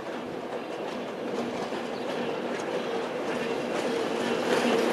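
ČKD T669 diesel-electric locomotive approaching with passenger coaches in tow. Its diesel engine gives a steady hum that grows louder as it nears, with clicking from the wheels on the rail joints.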